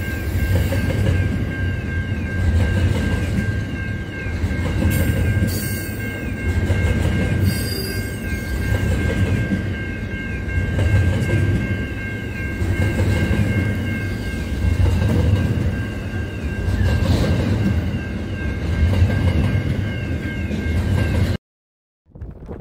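Double-stack container freight train wagons rolling past close by: a steady rumble and clatter of wheels on rail, swelling every couple of seconds, with a thin steady high-pitched wheel squeal running through it. The sound cuts off abruptly near the end.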